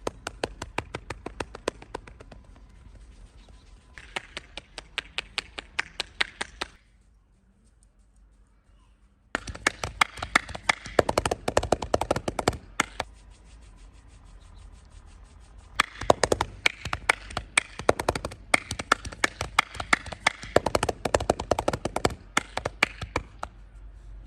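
Rapid, rhythmic hand slaps and taps of a head, neck and back massage, several strikes a second, in runs broken by a short near-silent pause about seven seconds in.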